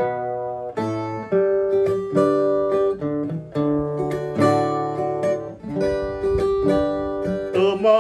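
Resonator guitar playing an instrumental break: a picked melody of single notes and chords. A man's singing voice comes in near the end.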